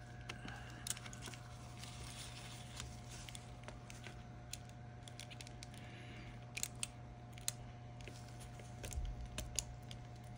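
Gloved hands handling the opened Viofo A119 dashcam's plastic case and ribbon cable: faint scattered clicks and rustles, more of them in the second half, over a steady low hum.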